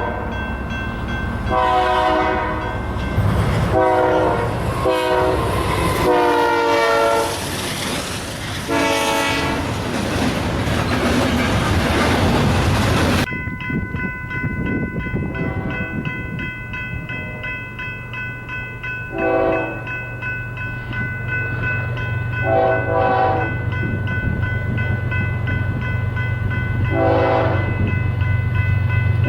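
Locomotive air horns sounding a series of chorded blasts over train rumble and wheel-on-rail noise. About 13 seconds in, the sound cuts abruptly to another train sounding four or five shorter horn blasts over a low steady engine drone.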